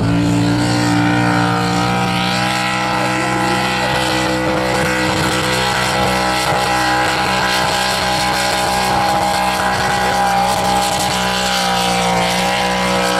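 Modified pulling tractor's engine running flat out at steady high revs, loud, while the tractor drags the weight-transfer sled down the dirt track.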